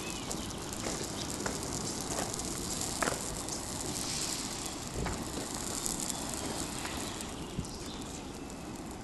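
Poplar seed fluff and dry grass burning along the ground: a steady hiss with a few scattered sharp crackles.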